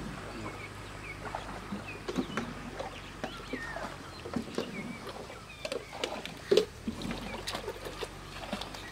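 Scattered light knocks and clunks, with one louder thump about two-thirds of the way in, and short bird chirps over them.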